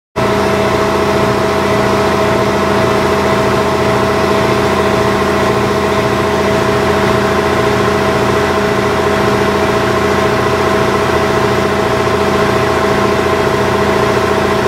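Steady mechanical hum of a machine running, with several constant tones and an even level throughout.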